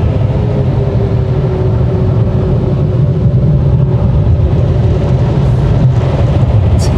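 Automatic car wash machinery running, a loud, steady low rumble heard from inside the car's cabin.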